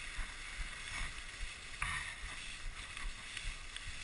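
Dog sled runners hissing steadily over packed snow, with a couple of sharper scrapes as the sled jolts along the trail.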